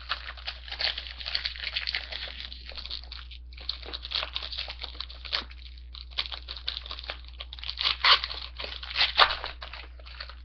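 Hockey card pack wrapper, paper with a foil lining, being torn open and peeled apart by hand: a dense crinkling and crackling with two short pauses, loudest near the end.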